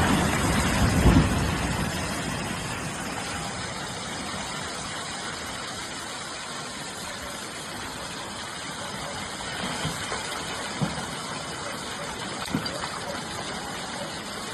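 A concrete road bridge collapsing into a flooded river: a loud, low rumbling crash and splash in the first two seconds, then a steady rush of floodwater, with a couple of faint knocks near the end.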